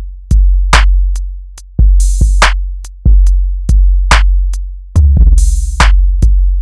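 Hip hop drum-machine beat looping: kicks with long low bass notes beneath them and sharp snare hits in a steady repeating pattern. A hissing swell returns twice, once per loop, about every three and a third seconds.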